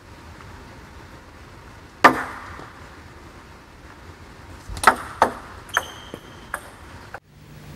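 Table tennis ball and racket: one sharp tap about two seconds in, then a fast long serve hit off the backhand rubber, followed by a quick run of ball bounces as sharp clicks, one with a brief ringing ping.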